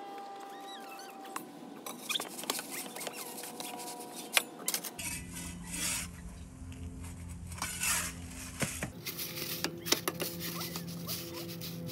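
Metal pizza peel clicking and scraping against the oven's stone floor as it is slid under the pizza to turn it, with a few sharp clicks standing out.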